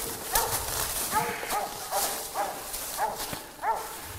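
Squirrel dog barking treed at the foot of a tree, a steady run of short barks about two a second, the sign that it has a squirrel up that tree.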